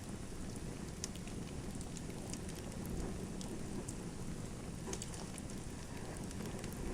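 Fireplace fire burning: a steady low rush of flames with scattered sharp crackles and pops.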